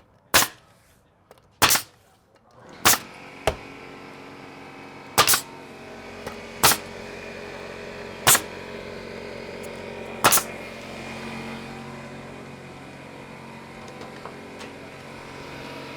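Siding being nailed to the wall: eight sharp single nailing strikes, one to two seconds apart, over the first ten seconds. A steady machine hum comes in about two and a half seconds in.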